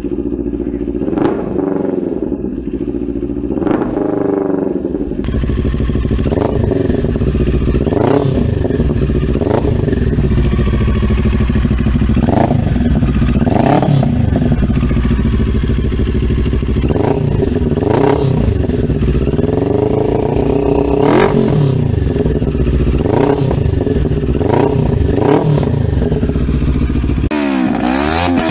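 CF Moto NK 400 two-cylinder engine running through aftermarket slip-on exhausts, revved in short repeated blips that rise and drop back, about one every one to two seconds. The exhaust note changes abruptly twice where separate recordings are joined.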